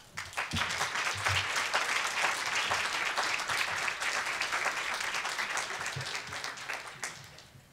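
Audience applauding, many hands clapping together; the applause starts just after the introduction ends and dies away near the end.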